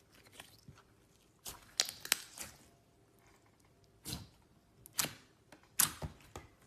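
Clear slime being pressed and squeezed by hand, giving wet crackling clicks and pops in four short bursts.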